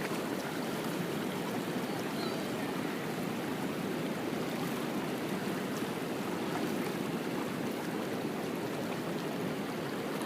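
Shallow river flowing over its bed, a steady rush of water.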